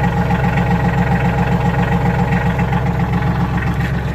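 Tractor engine idling steadily, with a fast even pulsing.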